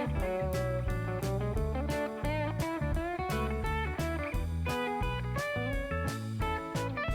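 Background music: a blues-style electric guitar playing bending, sliding lines over a steady beat and bass.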